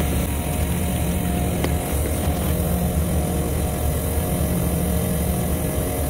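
Steady, low mechanical hum of running machinery, with a faint steady whine above it.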